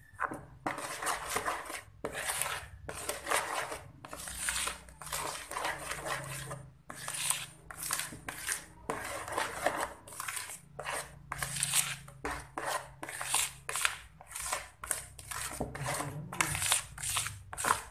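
Green plastic spatula stirring a thick whipped ice-cream mixture in a large plastic basin: a rhythmic run of wet scraping strokes against the basin's sides, about two a second, quickening in the second half.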